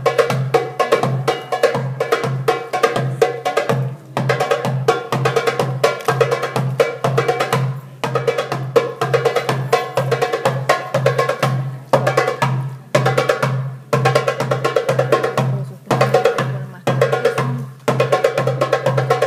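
Derbake (Middle Eastern goblet drum) played solo in fast rolling strokes with ringing high tones, in phrases broken by brief pauses every couple of seconds, over a steady, evenly pulsing low beat.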